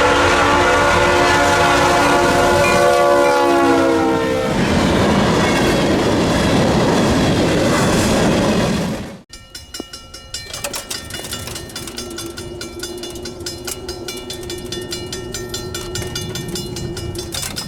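A locomotive horn sounds a steady chord for about four seconds while the train rumbles loudly past; the passing noise goes on until it cuts off sharply about nine seconds in. After that comes a quieter stretch of rail clicks and clanks with a faint steady hum.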